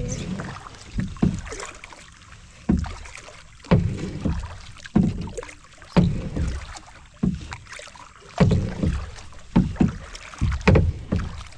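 Kayak paddling: paddle strokes dipping into the river roughly once a second, each a sudden splash and knock, some coming quicker near the end.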